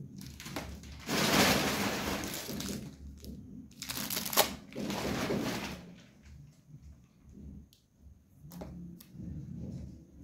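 Plastic packaging crinkling and rustling as groceries are handled, in two loud stretches, with a sharp knock about four seconds in, then softer small handling sounds.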